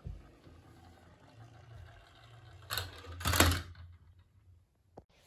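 Small plastic toy truck rolling down a wooden board and onto a wooden floor, its wheels giving a steady low rumble. A louder rattle comes about three seconds in, and the rolling dies away near the end.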